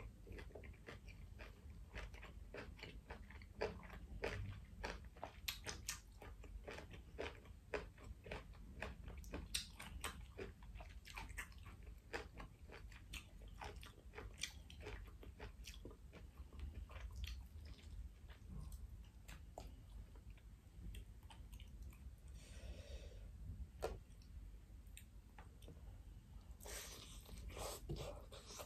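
Close-miked wet chewing of a mouthful of food: a dense run of small mouth clicks and smacks that thins out after about halfway. Near the end there is a short scrape as chopsticks pick food from a bowl.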